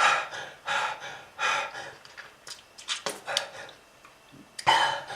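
A person's laboured, rasping breathing: hard gasps about once a second, a short pause, then a strong gasp near the end. It is the struggling breath of lung disease brought on by smoking.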